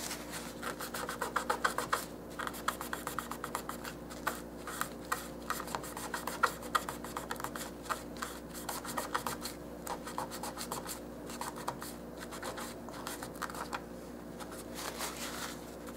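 Paper towel rubbed hard back and forth over a small paper-covered miniature toolbox, a quick irregular run of scratchy strokes. It is burnishing oil paint over a Mod Podge finish into a greasy stain.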